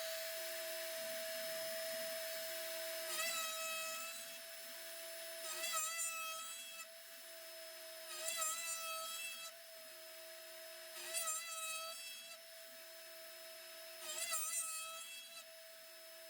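CNC mill spindle running a 1/4-inch end mill through a 1-inch-thick aluminium plate to cut bolt holes: a steady whine with a burst of cutting noise about every three seconds as the tool bites.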